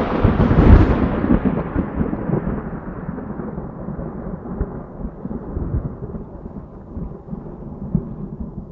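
Thunder clap: a loud crack and boom under a second in, then a long low rumble with scattered crackles that slowly fades.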